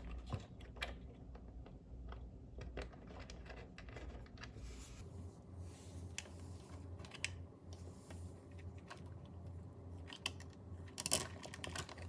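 Faint, scattered small clicks and taps of fingers handling a machine screw, rubber outlet-box extender and plastic electrical receptacle, with a cluster of louder clicks near the end.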